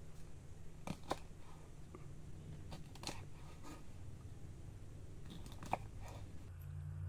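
Chef's knife cutting through crisp fresh green beans and knocking on a wooden cutting board: a few sharp cuts at irregular intervals, over a faint steady low hum.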